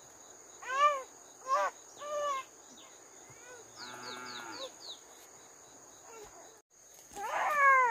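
A baby crying in short rising-and-falling wails, three in the first half, then a longer, louder wail near the end. Faint short chirps sound in the background around the middle.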